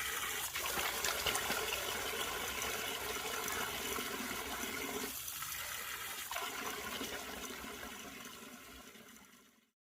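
Cold-water shower running, a steady spray of water that fades away near the end.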